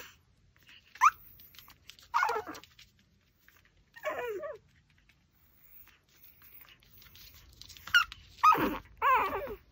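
Pomeranian puppy giving about six short, pitch-bending whines and yips, several of them close together near the end.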